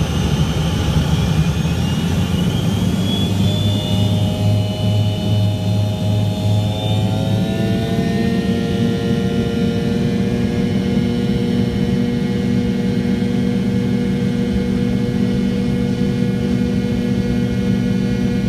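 Pratt & Whitney JT8D turbofans of an MD-82 at takeoff power, heard from inside the cabin: a loud roar with a whine that climbs in pitch over the first several seconds, then settles into a smoother, steady drone with a held whine from about eight seconds in.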